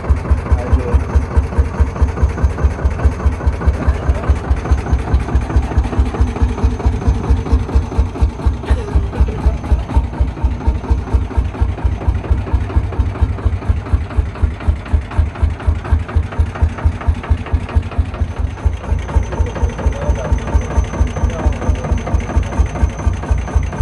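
Lanz Bulldog tractor's single-cylinder two-stroke hot-bulb engine running at low revs, a steady, even beat of single firing strokes with no change in speed.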